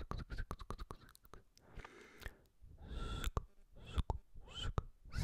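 Close-miked ASMR mouth sounds: a quick run of lip and tongue clicks, then breathy whispers with more clicks near the end.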